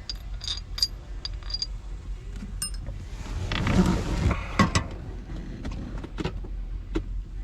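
Metal shifter parts being handled and fitted: scattered light metallic clicks and clinks, with a louder stretch of rubbing and scraping and a couple of knocks about halfway through.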